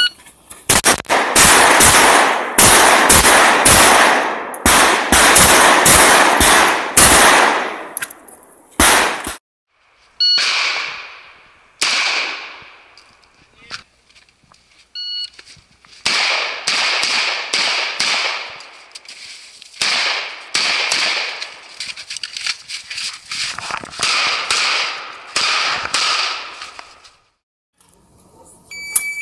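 Rapid gunfire: strings of shots fired in quick succession, several a second. The strings break off for a few seconds about a third of the way in and start again.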